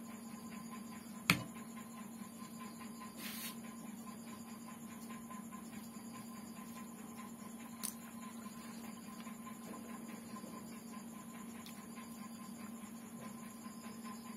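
Quiet sounds of eating rice and chicken curry by hand from a plate: a sharp click just over a second in, a brief rustle a couple of seconds later and a smaller click about halfway, over a steady low hum.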